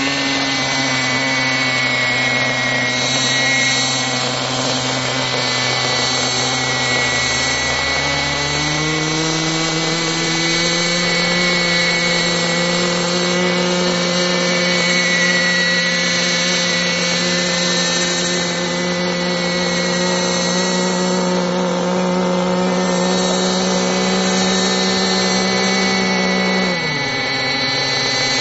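Radio-controlled tandem-rotor Chinook model helicopter running on the ground, its motor and rotors making a steady high whine. The pitch steps up about a third of the way in and drops suddenly near the end.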